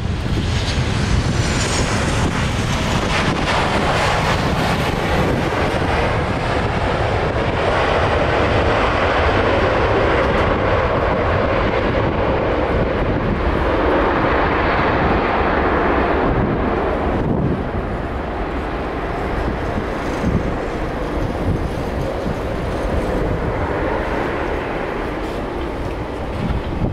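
The twin jet engines of a Lion Air Airbus airliner taxiing at low thrust: a steady rushing jet noise. A faint high whine is heard in the first couple of seconds, and the noise eases a little past the middle.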